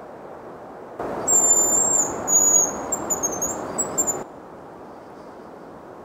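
Hazel grouse whistling its song: very high, thin whistles starting about a second in, a long held note followed by shorter wavering notes, lasting about three seconds.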